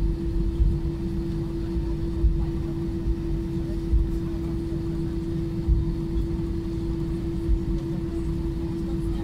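Airbus A320 cabin noise while taxiing: the engines and airflow give a low rumble with a steady hum tone. Dull thumps come about every one and a half to two seconds.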